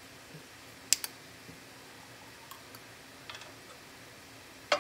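A few sharp clicks and light taps as a soy sauce bottle cap is opened and a measuring spoon is handled, with a loud double click about a second in and another loud click near the end.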